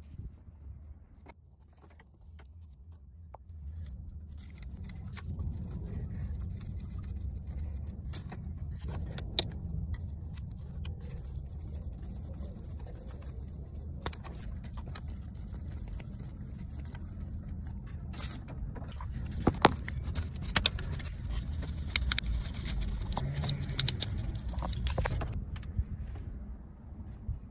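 Metal tools and small parts clinking and rattling during work in an engine bay, with a few sharper clicks, over a low steady rumble.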